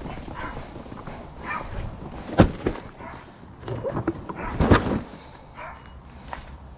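A dog barking in short bouts, with a sharp knock about two and a half seconds in.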